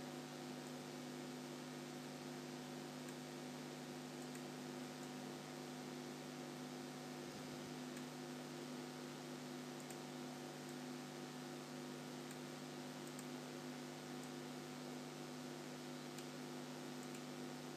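Steady electrical mains hum with hiss from the recording setup, with a few faint clicks now and then.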